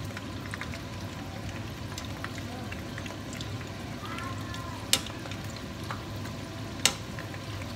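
Spring rolls deep-frying in a pan of hot oil with a steady sizzle. Metal tongs click sharply twice against the pan as the rolls are turned, about five and seven seconds in.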